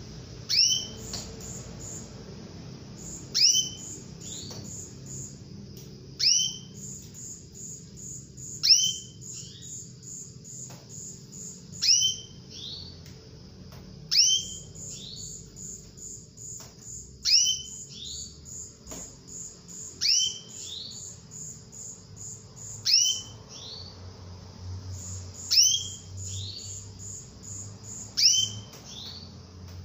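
Female domestic canary calling over and over: a sharp, falling note with a lower second note, about once every two and a half to three seconds, eleven times in all. A fast, even, high-pitched pulsing runs steadily behind the calls.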